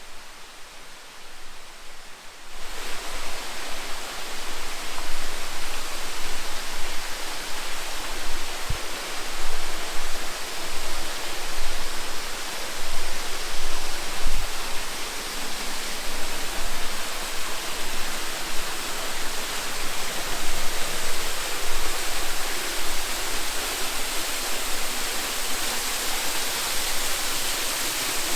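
Waterfall: a loud, steady rush of falling water, which comes in suddenly about two and a half seconds in after a quieter start.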